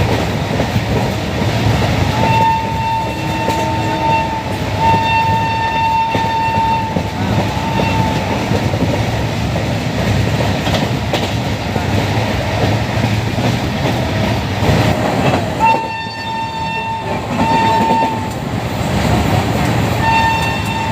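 Shrill electric train horn sounded in two groups of blasts, two long honks and a short one about two seconds in, then a shorter pair about sixteen seconds in and another blast at the very end, over the steady rumble and clickety-clack of a train running on the line.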